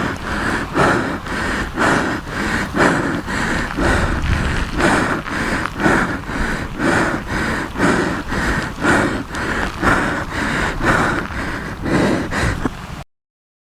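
Storm wind and rain heard from a car, with rhythmic whooshing strokes about twice a second over a steady rumble, cutting off suddenly near the end.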